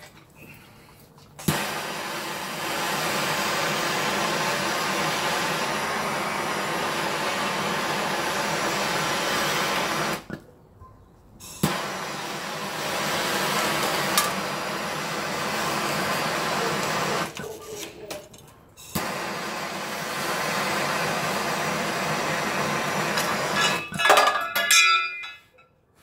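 Handheld heat gun blowing hot air onto an ECU board's connector pins to melt the solder, running in three long stretches with two short breaks. Near the end come a few sharp metallic clinks as the connector is pried loose with a screwdriver.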